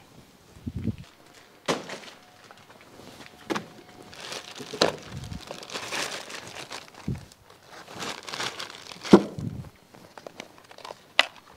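Crinkling and rustling as gloves and a respirator are handled and put on, with scattered clicks and a sharper knock about nine seconds in.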